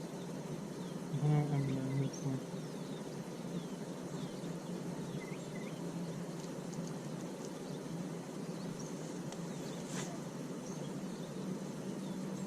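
A steady low hum with faint high chirps scattered through it, a brief pitched, voice-like sound about a second in, and a single click near the end.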